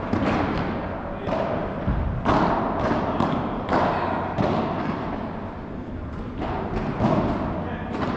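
Padel rally: the ball is hit by solid padel rackets and bounces off the turf and walls, about ten sharp, irregularly spaced hits that echo in a large hall.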